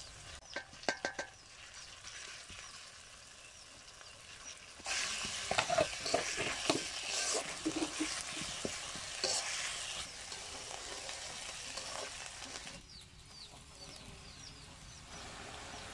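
Onions frying in hot oil in an iron karai, stirred and scraped with a metal spatula. About five seconds in the sizzle jumps louder as wet ground spice paste and powders go into the oil. It eases off after about twelve seconds.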